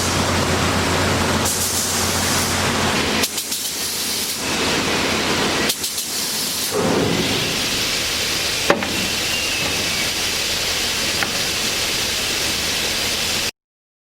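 Cemco 2000 43-inch wide belt sander running with a steady hissing noise; its low hum drops away about three seconds in, a few sharp clicks sound along the way, and everything cuts off abruptly near the end.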